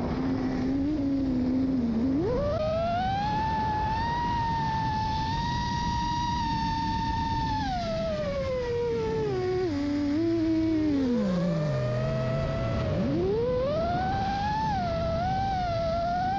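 FPV quadcopter's brushless motors whining, the pitch rising and falling with the throttle: held high and level for a few seconds, sinking slowly to a low hum about ten seconds in, then climbing sharply back up.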